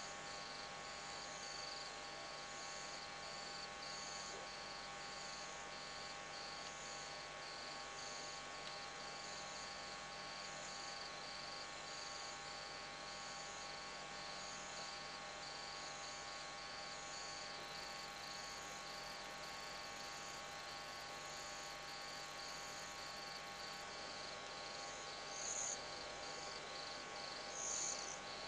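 Night insects chirping faintly in steady, evenly repeated pulses at two high pitches, over a steady electrical hum. A few louder, higher chirps come in near the end.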